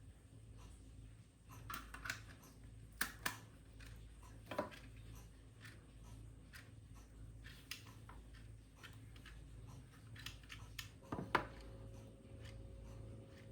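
Scattered light clicks and knocks of household objects being handled, over a low steady hum; a louder knock about eleven seconds in, after which a steady tone holds.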